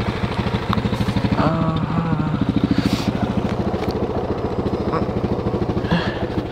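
Linhai 400S Dragonfly ATV's single-cylinder four-stroke engine idling with a rapid, even putter. The rider doesn't like how it sounds and suspects either a worn spark plug or a loose carburettor intake boot drawing in false air.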